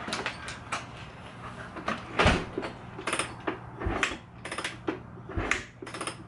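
Kawasaki KX250F four-stroke single-cylinder dirt bike being kick-started: three kicks about a second and a half apart, each a short thump as the engine turns over without firing, with clicks and rattles of the kick lever between them.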